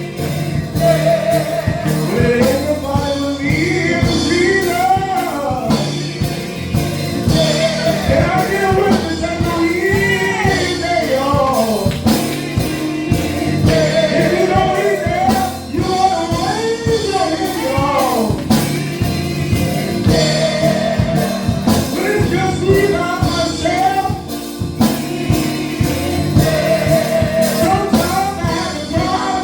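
Gospel song with voices singing over instrumental accompaniment and a steady beat.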